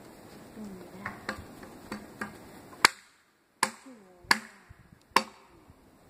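Machete chopping into a wooden stick laid across a log. A few light knocks come first, then four sharp, loud chops in the second half, each a little under a second apart.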